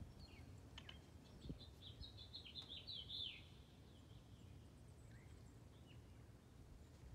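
Near silence with faint bird chirping: a quick run of short, high chirps, densest from about two to three and a half seconds in.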